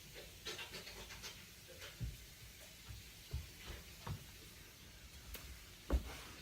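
Faint handling noises: scattered light rustles and clicks with a few soft thumps.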